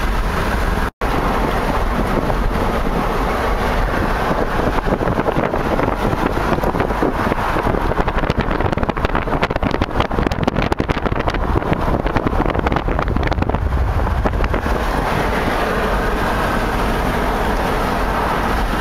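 Steady road noise of a moving car heard from inside, a continuous rumble and rush, with a stretch of dense rattling and knocking in the middle. The sound cuts out for an instant about a second in.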